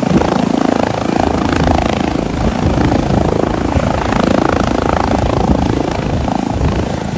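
Eurocopter EC135 helicopter on the ground with its engines running and main rotor turning, a steady dense rotor and turbine noise with a faint high whine over it.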